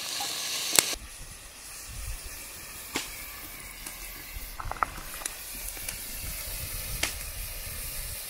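Cubes of sirloin steak sizzling as they brown in a hot cast iron Dutch oven: a steady hiss with scattered sharp pops. The sound drops and changes about a second in.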